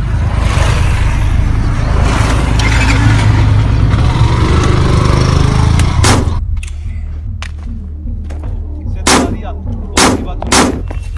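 Motorcycle engine running with a steady low rumble for about six seconds. Then four handgun shots follow: one about six seconds in and three close together near the end.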